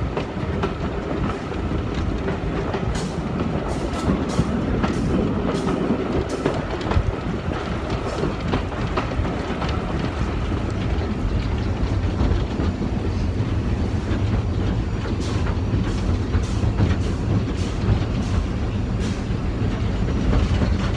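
Steam locomotive running along the line, heard from its cab: a steady rumble of engine and wheels, with scattered clicks of the wheels over the rail joints.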